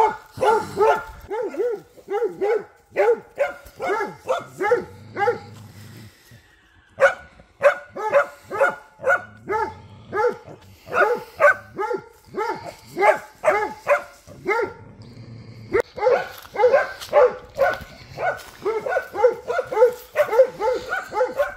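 Hunting dogs barking at wild boars, baying at the game: a steady run of short barks, about two to three a second, with a brief lull about six seconds in. The barking starts again and grows denser and overlapping from about two-thirds of the way through.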